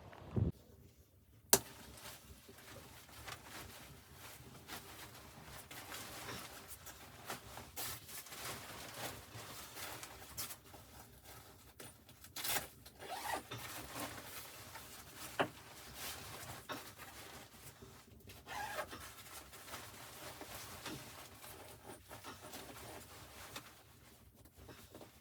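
Irregular rustling and handling noises with a few sharp clicks and knocks, the loudest a click about a second and a half in.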